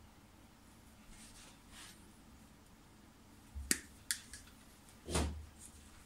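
Diagonal side cutters snipping a red wire and its insulation: three sharp clicks about three and a half to four seconds in, then a louder, duller knock about five seconds in.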